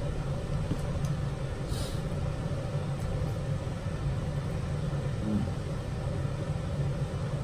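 Steady low hum of room background noise, with a brief faint hiss about two seconds in.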